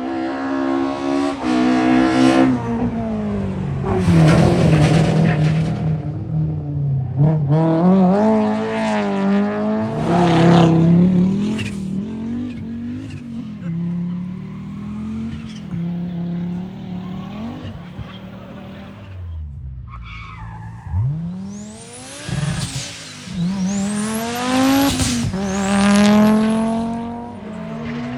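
Rally cars driven hard, engines revving high and shifting gears repeatedly, the pitch climbing and dropping over several runs.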